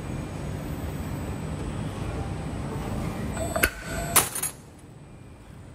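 CNC wire forming machine running with a steady low rumble as it bends 9.5 mm wire, then a sharp metallic click and, about four seconds in, a loud metal clack as the servo cutter shears the wire. After the cut the machine runs more quietly.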